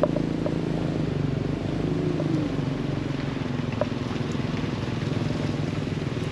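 New Land Rover Defender driving slowly along a muddy dirt track, its engine running steadily, with one brief rise and fall in pitch about two seconds in.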